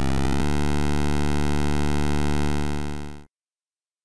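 Synthesized electronic buzz serving as a cartoon jet ski's engine sound effect. It warbles briefly at first, then holds a steady tone and fades out about three seconds in.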